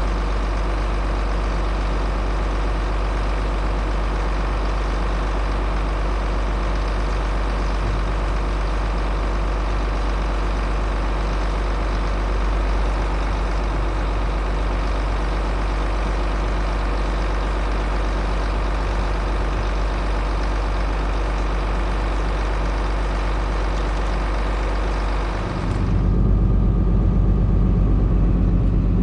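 Heavy vehicle engine running steadily. Near the end the sound turns abruptly louder and deeper.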